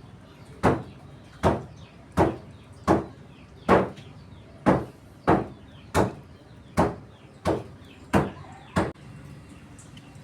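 A series of about twelve sharp knocks or chops, roughly one every 0.7 seconds, that stop about a second before the end.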